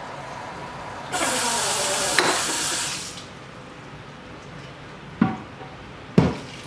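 Water rushing and sloshing in a glass carboy being rinsed at a sink for about two seconds, then two short knocks as the carboy is handled near the end.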